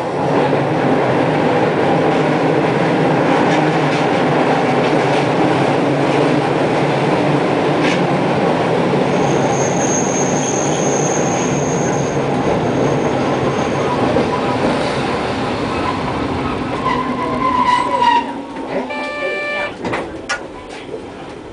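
Hankai Tramway streetcar running along street track, heard from inside the car: a steady rumble and rattle of wheels on rail. A thin high wheel squeal lasts a few seconds about ten seconds in. The noise drops near the end as the tram eases off, with a few short tones.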